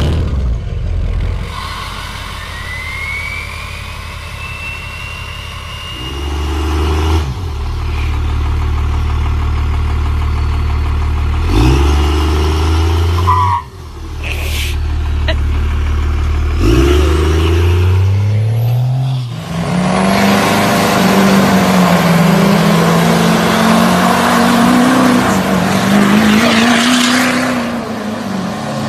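Diesel pickup engines revving hard: a Cummins-powered Dodge Ram blipped up three times while rolling coal, then a burnout, with tyre noise hissing over an engine held high and wavering in pitch.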